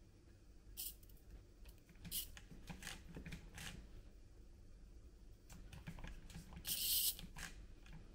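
Small plastic clicks and scrapes as fingers handle a 1/64-scale micro RC crawler, with a brief rasping scrape about seven seconds in as the loudest sound.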